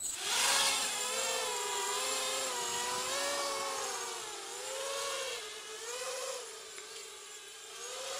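Lumenier QAV 250 quadcopter's brushless motors and propellers spinning up for takeoff, starting suddenly, then buzzing in flight with a pitch that keeps wavering up and down as the throttle is worked.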